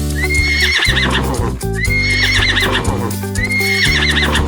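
Horse whinnying three times, each a high call that rises, holds and then shakes as it falls, over background music.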